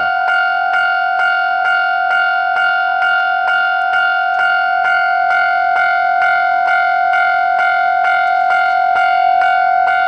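Japanese railway level-crossing warning bell ringing steadily, a repeated electronic 'kan-kan' chime at about two strokes a second, sounding while a train approaches and passes.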